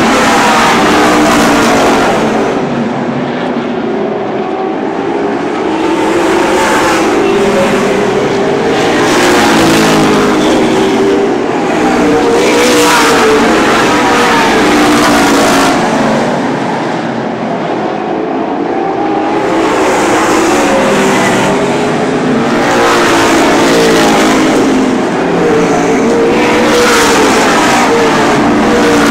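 A field of super late model race cars running on a short oval track, their V8 engines at racing speed. Engine pitch rises and falls over and over as the cars accelerate and lift, and it swells loudest every few seconds as cars pass close by.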